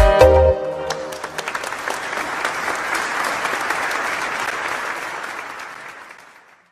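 The song's last notes stop about half a second in, then an audience applauds, the clapping fading away near the end.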